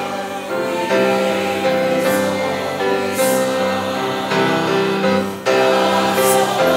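A church choir singing in sustained chords, with sung 's' sounds hissing a few times.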